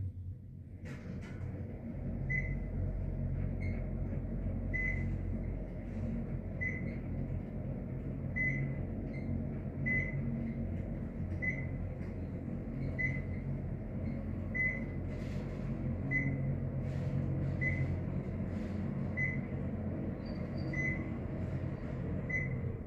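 Dover traction elevator car in motion: a steady low hum of the ride that starts about two seconds in. Over it, a short high beep sounds about every second and a half, the floor-passing tone.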